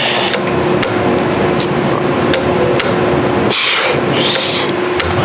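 Weight-stack leg machine in use during a set: sharp clicks and knocks from the stack and its mechanism, over a steady hum and noise. A loud breathy hiss comes in about three and a half seconds in and lasts about a second.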